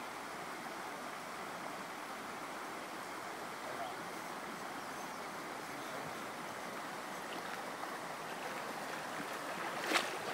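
Small trout stream flowing over a riffle: a steady rush of running water. Near the end there is a sharp knock followed by rustling.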